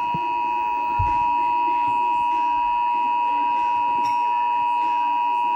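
Emergency Alert System attention signal: a steady, unbroken two-tone alarm tone held at one pitch, with a short low thump about a second in.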